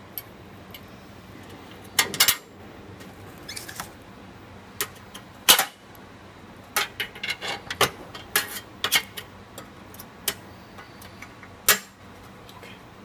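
Light metallic clicks and clatter from handling the metal parts of a gas burner assembly, coming irregularly. There is a quick cluster about two seconds in, a single sharp click in the middle, a busy run of clicks after that, and one more near the end.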